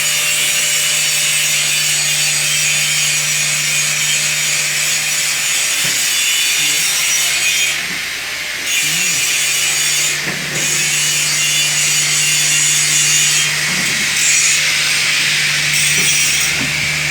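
Industrial site machinery running: a loud, steady hiss with a low hum underneath. The hiss drops away briefly a few times.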